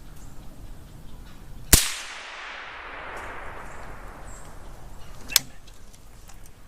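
A single suppressed rifle shot about two seconds in: a sharp crack followed by a long fading echo that rolls on for about two seconds. A short sharp click follows a few seconds later.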